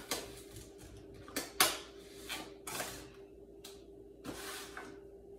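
Food and plastic containers being handled on a kitchen counter: a run of clicks and short rustles, the loudest about a second and a half in, over a faint steady hum.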